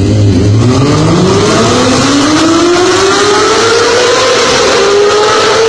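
Honda CBR250RR's high-revving 250 cc inline-four engine accelerating, its pitch climbing steadily for about four seconds and then holding high.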